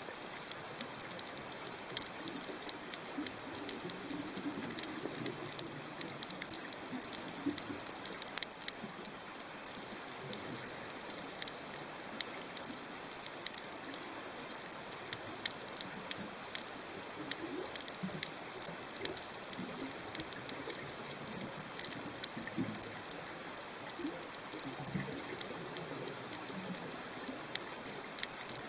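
Underwater coral-reef ambience: a steady crackling hiss made of many small, irregular clicks, with faint low gurgles now and then.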